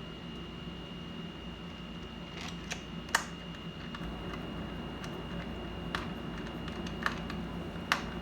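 Scattered sharp clicks and taps of small tools and computer parts being handled, five or six in all, the loudest about three seconds in, over a steady low hum and a faint steady high whine.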